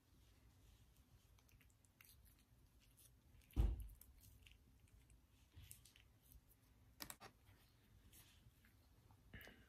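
Faint rustling and small clicks of a ketchup packet being squeezed out and a muffin sandwich being handled, with one dull thump about three and a half seconds in.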